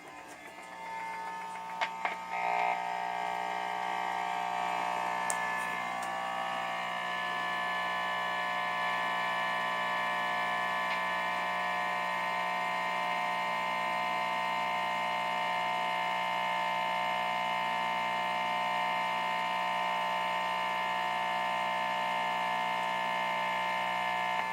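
Electrical interference from a plugged-in LG TV, picked up by an instrument's pickup and heard through a cranked amplifier: a few clicks about two seconds in, then a steady, high-pitched buzz made of several tones, an unwanted noise that spoils recordings.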